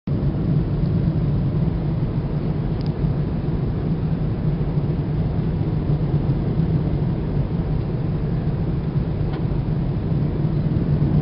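A steady outdoor rumble with a constant low hum, starting abruptly and holding even throughout, of the kind made by distant traffic or engine noise.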